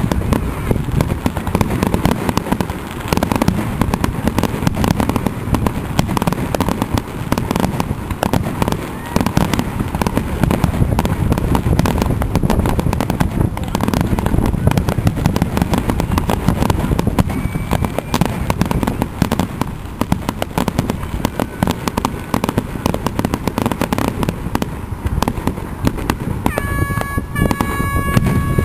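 Closing fireworks display: aerial shells bursting in rapid, unbroken succession, with dense crackling throughout.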